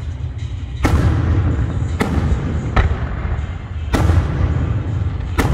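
Aerial fireworks shells bursting: five sharp bangs about a second apart, over a steady low rumble from the ongoing display.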